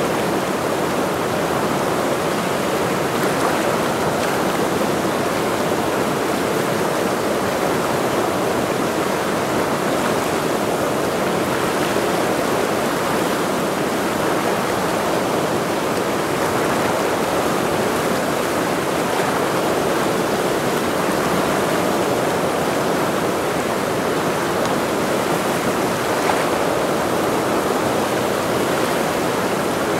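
The Ursul, a mountain river, rushing steadily.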